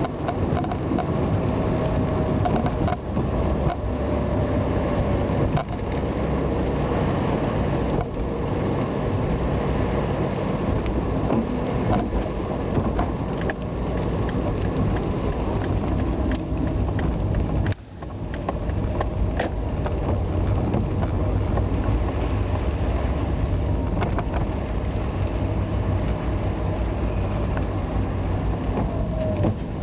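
A vehicle on the move on wet roads: steady running and road noise with scattered clicks and rattles, and a brief drop about eighteen seconds in.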